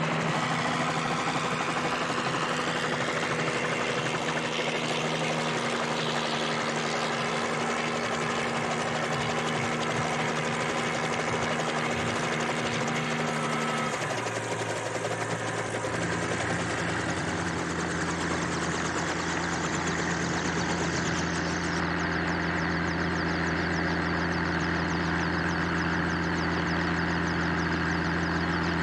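Light turbine helicopter's engine and rotor running steadily: first in flight, then, after a change about halfway in, running on the ground with the rotor turning.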